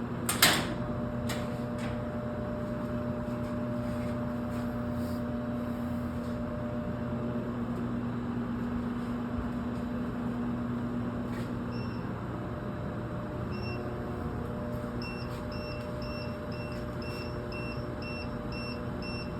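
400 kVA modular UPS humming steadily as its power modules start up, with a sharp click about half a second in. From about twelve seconds in, its alarm beeper sounds short high beeps that settle into a quick regular series, about two to three a second.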